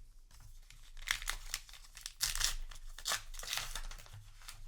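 Trading card booster pack's foil wrapper crinkling and tearing as it is opened, in a run of crackly rustles.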